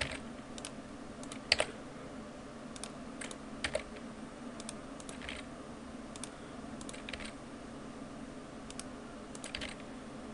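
Scattered clicks of a computer keyboard and mouse at irregular intervals, the loudest about one and a half seconds in, over a steady low hum.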